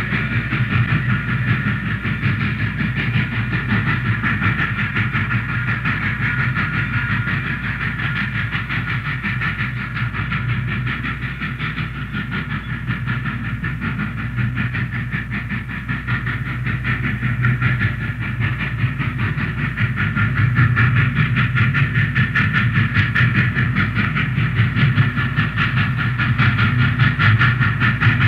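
Railway locomotive working in a yard during switching moves: a steady, rapidly pulsing engine and rail noise that grows louder about two-thirds of the way through.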